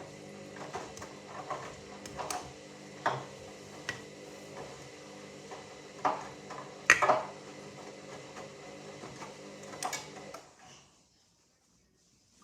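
Hoover Dynamic Next washing machine turning its drum on a rapid 30° wash of sheets: a steady motor hum with irregular knocks and clicks from the tumbling load, stopping abruptly about ten seconds in.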